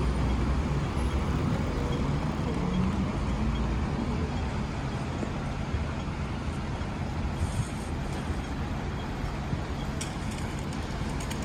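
Road traffic at a busy city junction: a steady mix of bus and car engines and tyre noise, with a low rumble that is heaviest at the start and eases off.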